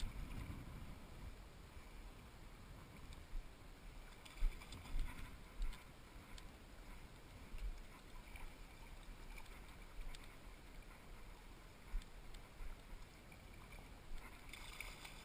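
River current swirling and lapping, with occasional short low thumps.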